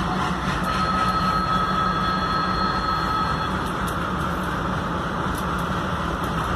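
Twin WDM-3A diesel-electric locomotives with ALCO 251 engines, running steadily under load as they pull a passenger train away from the platform. Near the start a steady high-pitched tone sounds over the rumble for about three seconds.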